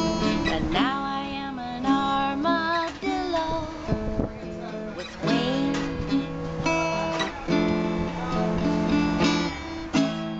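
Acoustic guitar strummed, with a woman singing along in a loose, wavering melody.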